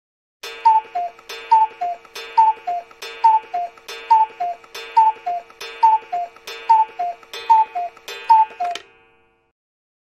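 Antique pendulum clock ticking evenly, about two ticks a second, alternating higher and lower in pitch (tick-tock) over a steady ringing tone. It stops about nine seconds in.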